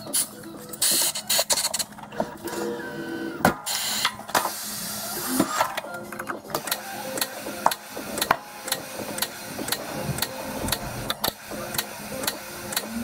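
Hunter Auto34 tyre changer at work mounting a tyre on a chrome wheel: short bursts of air hiss and a run of metal clicks and knocks. The clicks settle to about two a second in the second half, over a steady low hum.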